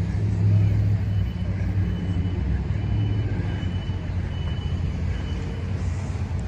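Car engine and road noise heard from inside the cabin while driving: a steady low hum under an even rush.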